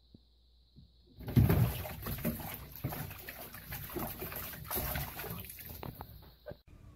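A cat falls into a filled bathtub about a second in, with a loud splash, then splashes and thrashes in the water for several seconds. The sound stops abruptly near the end.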